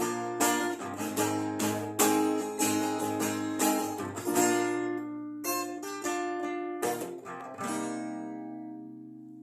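Guitar strumming a run of chords, ending on a final chord about seven and a half seconds in that rings out and slowly fades.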